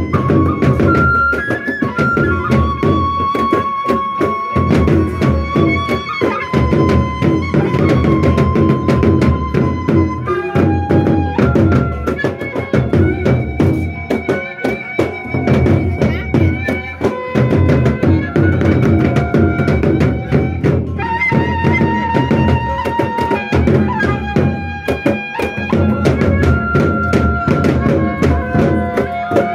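Sasak gendang beleq ensemble playing: large double-headed gendang beleq drums beaten rapidly with sticks, with cymbals and gongs, under a sustained melody line that steps between pitches.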